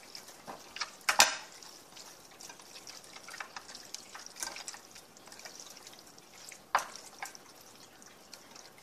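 Hands mixing seasoning into raw pork chops in a glass baking dish: wet squishing and slapping of the meat, with a few sharp knocks, the loudest about a second in and another near seven seconds.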